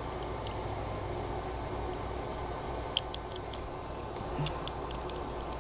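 Malino stiletto switchblade's blade being slid back into the handle by hand, giving a few faint metal clicks and then a quick run of sharper clicks about three seconds in as it seats closed, over a steady background hum.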